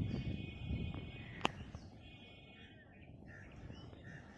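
Rural outdoor ambience with a bird giving two steady, high calls, a low rumble fading in the first second, and a single sharp click about a second and a half in.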